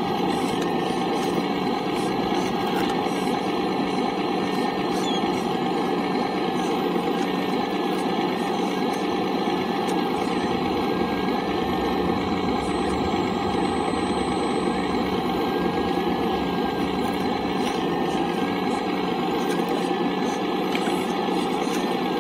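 Hydraulic pump of a radio-controlled hydraulic excavator running steadily while the boom and bucket dig, a constant mechanical whine that wavers slightly in pitch.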